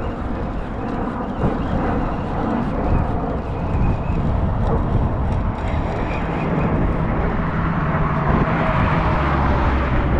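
Steady traffic noise from vehicles crossing the bridge, with wind on the microphone; a deeper engine rumble builds from about six seconds in.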